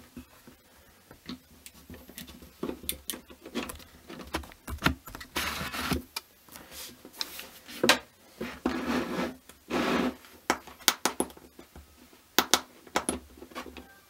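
Handling noise from a 3D-printed plastic modular watch on a wooden table: irregular small clicks and knocks, with longer rubbing noises about halfway through.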